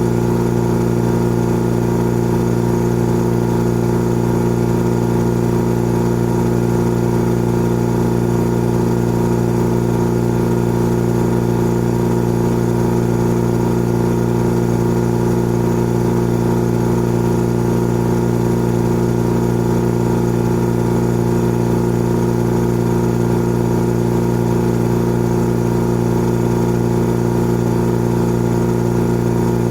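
Old electric air compressor running steadily: an even motor hum with a fixed pitch and no change in speed or load.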